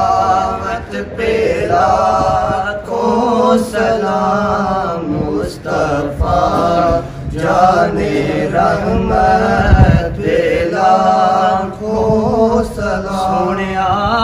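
Unaccompanied men's voices chanting a naat (Islamic devotional poem): one lead voice sings long, wavering melodic phrases over a steady hummed drone from the others. There is a brief low thump about ten seconds in.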